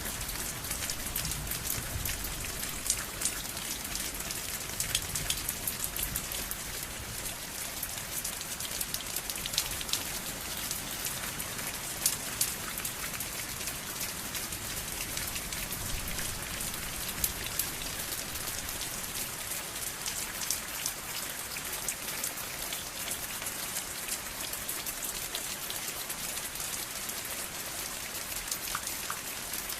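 Steady rain falling: a dense, even hiss scattered with many sharp clicks of drops striking a surface.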